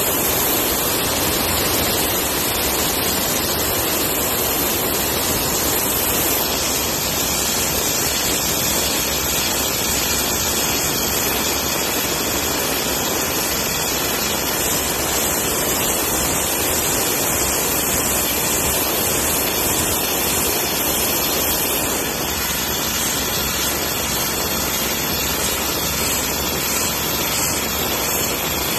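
Abrasive blasting: a steady, loud rushing hiss of compressed air and grit from a blast nozzle, stripping paint from a Mustang's rear quarter panel down to bare metal.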